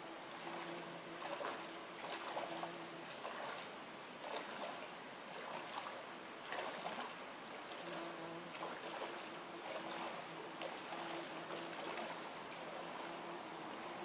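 A person wading through shallow river water, irregular splashes of the feet through the water over the steady wash of the river's flow. A faint low hum comes and goes in long stretches.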